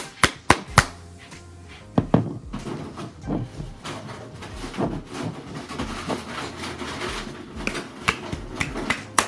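Background music with sharp knocks and clicks, a quick run of them in the first second and more scattered after, from working at a stuck lid on a jar of garlic Alfredo sauce.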